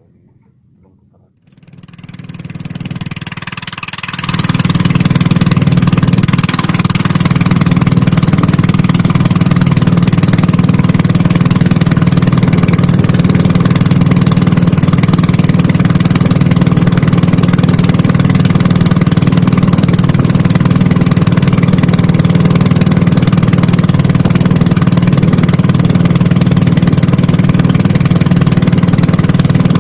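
An engine running steadily, coming up from quiet about two seconds in and settling to a constant loud level by about four seconds.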